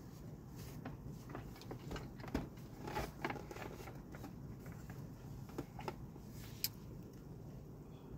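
Plastic clicks and knocks from a Laurastar steam generator's housing and braided hose being turned and set down on a workbench, with a sharp click about six and a half seconds in, over a steady low hum.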